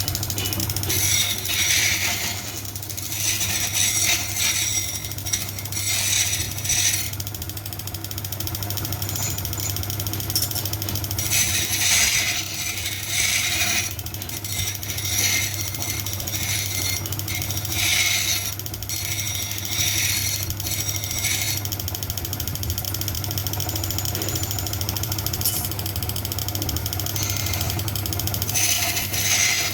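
Metal parts clinking and rattling in bursts every few seconds over a steady low machine hum.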